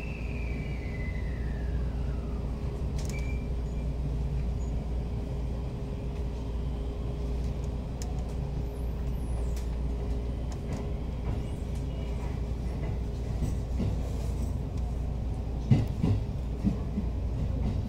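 Inside an electric commuter train: a steady low rumble and hum while it stands, with a short falling whine at the very start. About fifteen seconds in, the train begins to move and the wheels knock several times over rail joints and points.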